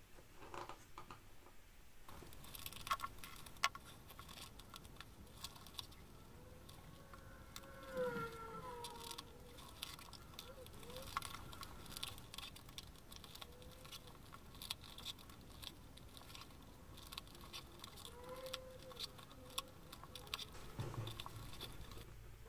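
Close-up handling sounds of hand-stitching leather: irregular small clicks and ticks of needles and thread being pulled through the leather, with the leather rustling as it is moved, and a soft thump about eight seconds in.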